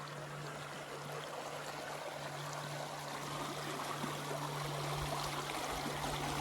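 A small mountain stream running steadily, growing slightly louder over the span, with a low steady hum underneath.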